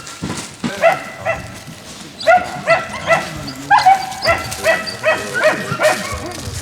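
Squirrel-hunting dogs barking, short sharp barks coming about three a second after the first second.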